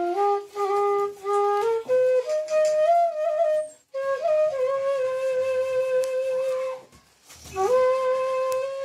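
Music: a solo flute melody played in held and stepping notes, broken by two short pauses about four and seven seconds in.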